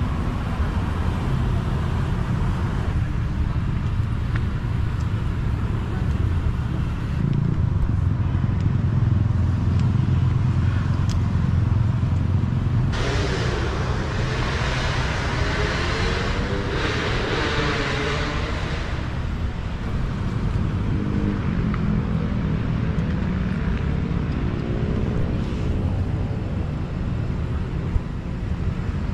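Steady low rumble of road traffic, with a vehicle passing closer for several seconds in the middle as a swelling hiss that fades away.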